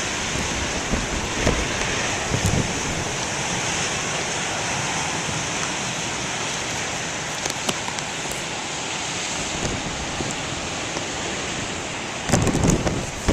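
Heavy ocean surf from a nor'easter swell breaking and hissing along a rocky shore, a steady rush of noise, with wind buffeting the microphone in low thumps and a louder low rumble near the end.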